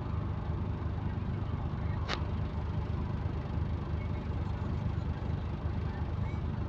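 A bus's engine and exhaust running with a steady low rumble, heard from on board; the bus has an exhaust leak. A single sharp click sounds about two seconds in.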